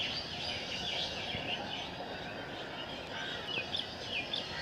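Small birds chirping with many short, quick calls over a steady outdoor background hiss.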